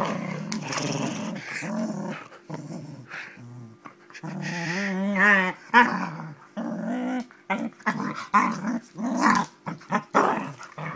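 Springer spaniel growling in play as it tussles with a hand: a run of short growls, with one longer wavering growl about five seconds in and several sharp short sounds in the later part.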